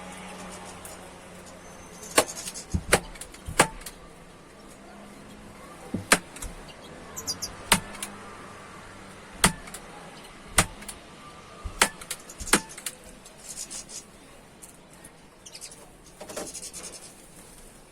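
Sharp taps and knocks at irregular intervals, roughly one every second or so, with a few brief high bird chirps about seven seconds in.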